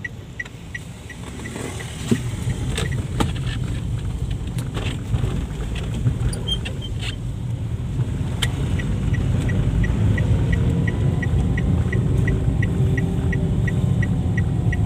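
Inside a moving car on a wet road: a steady low rumble of engine and tyres, louder from about two seconds in, with a few sharp knocks. In the last third the turn-signal indicator ticks evenly, about three clicks a second.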